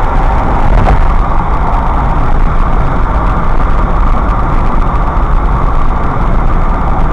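Steady road and tyre noise with engine hum from a car driving at highway speed, heard inside the cabin through a dashcam's built-in microphone.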